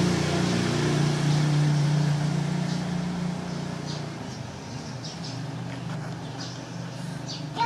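A steady low engine hum, strongest for the first few seconds and then fading, with light rustling. A baby macaque's cry starts right at the end.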